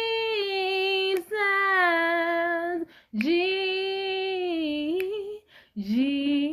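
A woman singing a slow worship chorus with no accompaniment, holding long notes on the word "Jesus" with short breaths between phrases.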